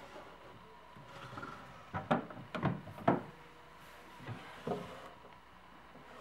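Small wooden drawers of an old apothecary cabinet being slid shut and pulled open. A cluster of sharp wooden knocks comes about two to three seconds in as a drawer is pushed home, with softer knocks later as another drawer is drawn out.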